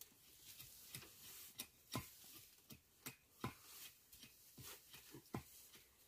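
Faint, irregular knocks of a small hand blade chopping at a wooden stake, about one or two strokes a second.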